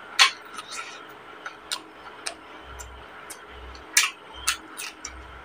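Close-up mukbang eating sounds of rice and chicken curry eaten by hand: chewing with a string of irregular sharp, wet lip smacks and mouth clicks, the loudest near the start and about four seconds in.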